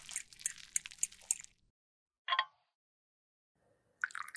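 Metal rod stirring thick melted lipstick in a glass beaker: wet squishing with quick clicks for about a second and a half. A short ringing clink follows about two seconds in. Near the end, the melted lipstick starts pouring from the beaker into a metal mold with a wet, crackly patter.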